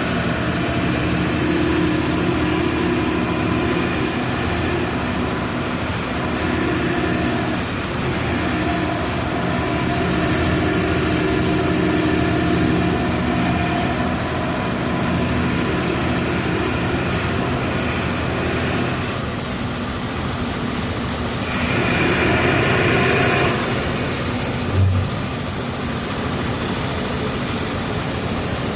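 Diesel engine of a Volksbus 17-230 EOD bus running, its note rising and falling with the throttle as the bus drives. A hissing noise lasts about two seconds a little past three-quarters of the way through, and a single short thump comes shortly after.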